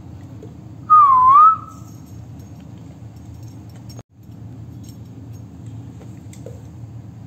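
A person whistles once, a short loud whistle about a second in that dips in pitch and rises again, over a steady low hum.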